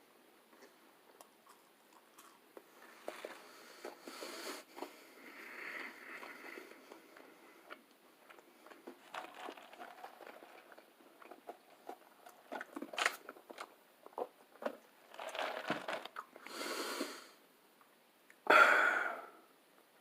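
Close-miked chewing and biting of a chicken sandwich, with wet mouth clicks and soft crunches. One louder noisy burst comes near the end.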